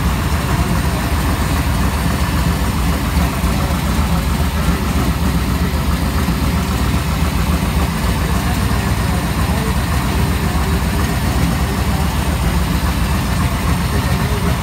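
Supercharged 598-cubic-inch V8 idling steadily, with no revving.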